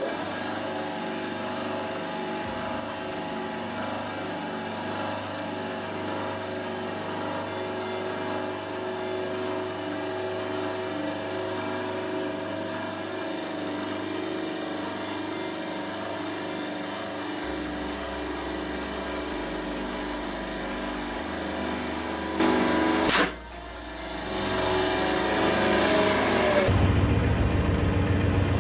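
Hydraulic press running as its ram slowly squashes a soccer ball: a steady mechanical drone with a sharp click about 23 seconds in, getting louder over the last few seconds. Background music plays along.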